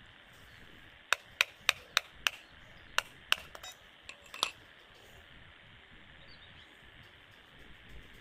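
Small hard-plastic RC gearbox parts clicking as they are handled: a quick run of about five sharp clicks, then three more spaced out, over faint background hiss.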